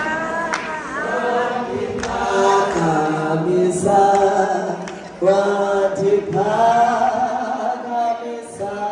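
Group of women singing a hymn unaccompanied, several voices together in long held notes, pausing briefly about five seconds in before the next phrase starts.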